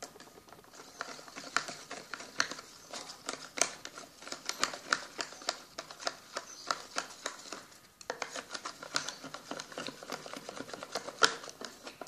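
Plastic Baby Alive toy spoon stirring a creamy mixture in a small plastic toy pot: a quick run of light clicks and scrapes against the pot's sides, with a short break about eight seconds in.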